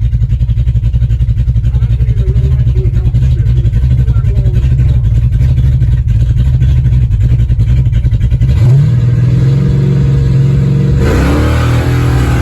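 Big-block Ford 521 V8 in a 1968 Thunderbird drag car, heard from inside the car, idling with a fast, lumpy pulse. About 8.5 s in it suddenly comes up on the throttle and launches. From about 11 s it pulls hard, climbing in pitch with rising wind and road noise.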